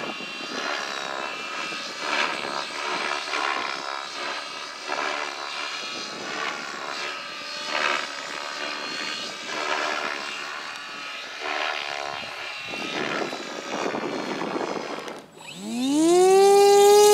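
A model aircraft's motor runs with a wavering pitch that rises and falls. After a sudden break, a model airplane's motor and propeller spool up in a rising whine and settle into a loud steady tone near the end, throttled up for takeoff.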